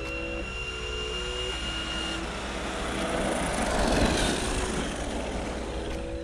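Laegendary Thunder 1/10-scale brushless RC truck driving on asphalt: a high electric-motor whine in the first two seconds, then the rush of the truck running over the road, loudest about four seconds in.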